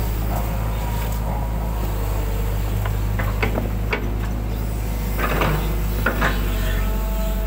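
Hydraulic excavator's diesel engine running steadily, heard from the cab, with short creaks and knocks from the arm and bucket as they swing and lower, a few of them about halfway through and again later.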